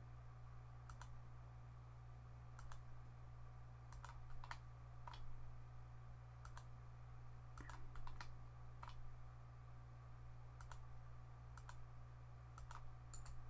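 Faint computer mouse clicks, irregular single and double clicks as points are picked on screen, over a steady low hum.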